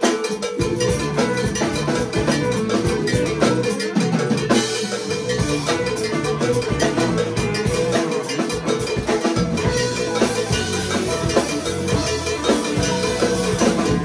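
A live band playing an instrumental passage of dub-style post-punk, loud in the room: electric guitar and keyboards over bass, with frequent sharp timbale strikes. A steady held note runs under the playing, and the bass fills in more steadily about two-thirds of the way through.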